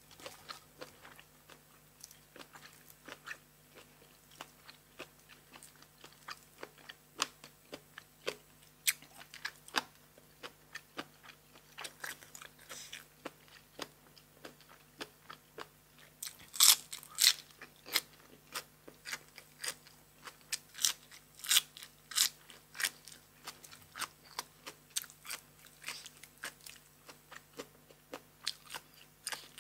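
A person chewing crunchy food close to the microphone: a steady run of crisp, wet crunching bites, loudest a little past halfway through.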